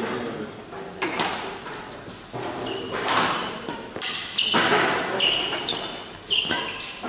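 Badminton rally: sharp racket strikes on the shuttlecock roughly once a second, with players' shoes squeaking on the sports-hall floor, echoing in the large hall.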